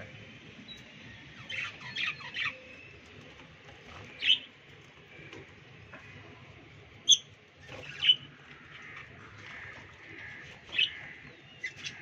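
Budgerigars chirping and squawking in an aviary: short sharp calls at irregular intervals over a faint steady chatter.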